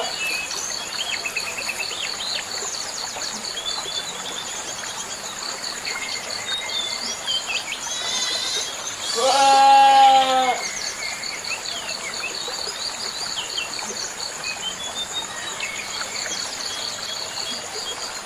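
A goat bleats once, loudly, about halfway through, over a steady pulsing insect trill and scattered short bird chirps. A steady background hiss runs underneath.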